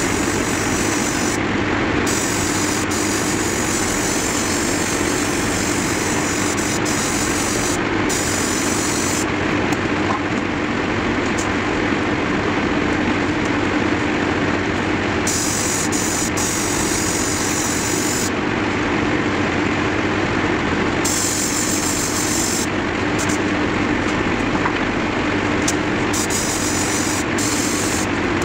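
Airbrush compressor running with a steady hum. Over it, the airbrush's air hiss starts and stops several times as the trigger is pressed and released.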